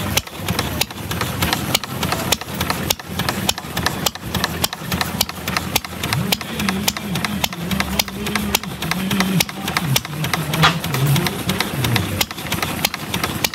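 Homemade replica of Henry Ford's single-cylinder kitchen sink engine, fired by a Model T ignition coil, running with a rapid string of sharp pops. A lower, wavering drone joins about halfway through.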